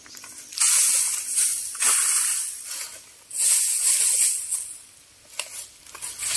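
Granular bamboo-killer chemical shaken out of its container onto the base of a bamboo clump: a high, rattling hiss in two pours of about a second and a half each, with a third starting near the end.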